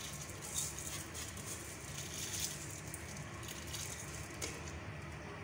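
Rice tipped from a metal bowl into a pot of water: a faint patter with a few soft splashes.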